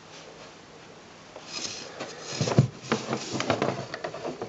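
Handling noise: a run of irregular clicks, taps and rubbing that starts about one and a half seconds in, with the loudest knock about halfway through.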